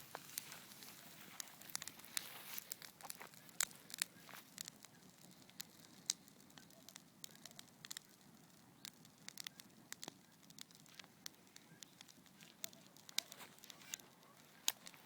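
Wood campfire crackling: irregular sharp pops and snaps over a soft hiss of flames, busiest in the first few seconds as the freshly stirred fire picks up.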